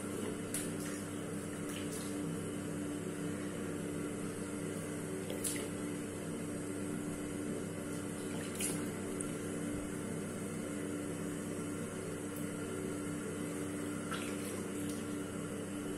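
Water running from a bathroom tap as a face is rinsed clean of a face mask, with a few sharp clicks and splashes and a steady hum underneath.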